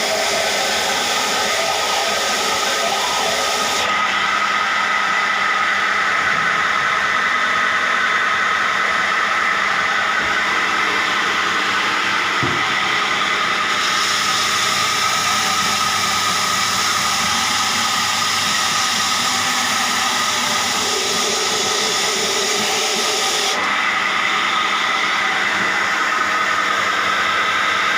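Belt sander machine running steadily: a continuous motor-and-belt noise with a steady high whine. The high hiss drops away abruptly about four seconds in, comes back around fourteen seconds, and drops away again near the end.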